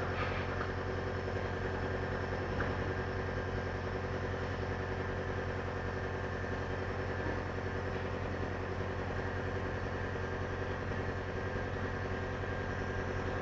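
Nebulizer's air compressor running with a steady hum, misting saline solution, with one brief click about two and a half seconds in.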